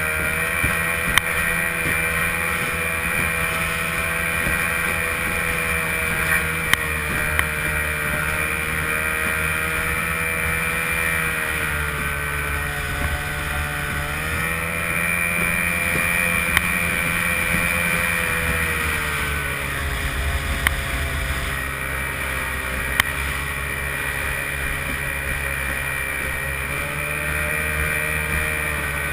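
A-Stock hydroplane's stock outboard motor running hard at racing speed, heard from the boat, its pitch wavering and dipping briefly a couple of times, over the rush of water and spray against the hull. A few sharp knocks cut through now and then.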